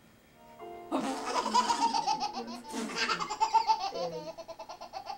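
Baby belly-laughing in long strings of quick, rapid ha-ha pulses, starting about a second in after a short quiet spell.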